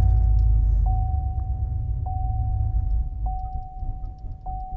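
Chevrolet Silverado pickup's engine just after a cold start, heard from inside the cab. It fires and then sags, fading and getting ragged as the revs drop toward 500 rpm: it is struggling because the mixture runs lean once startup enrichment ends. A thin steady high tone with a short tick about every second and a quarter sounds alongside it.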